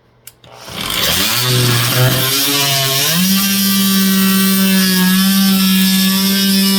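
Warrior 2 Amp corded oscillating multi-tool switched on with a click: its motor winds up with a wavering pitch, then settles about three seconds in into a steady, high buzz at its new speed setting.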